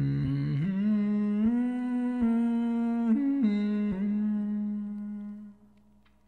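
A beatboxer humming one long held note that steps up and down in pitch a few times, then fades out about five and a half seconds in.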